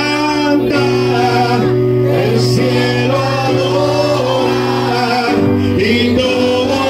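Gospel worship song: voices singing over sustained instrumental chords, the chord changing about five seconds in.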